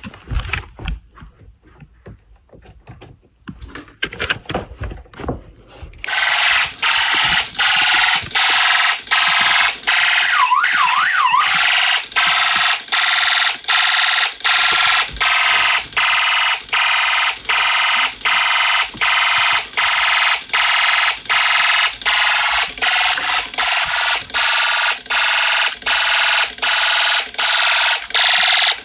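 A few quiet clicks, then about six seconds in the Snap Circuits fire alarm panel goes into alarm: a loud, harsh buzzing alarm tone that pulses evenly without stopping. A short warbling tone sounds over it about ten seconds in.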